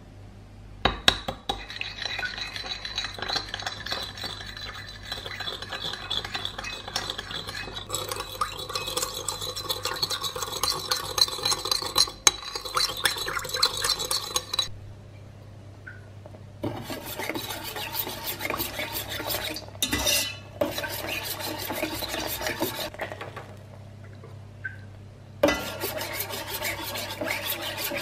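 Metal spoon rapidly beating egg and milk, clinking and scraping against the side of the bowl, in three long spells with short pauses between.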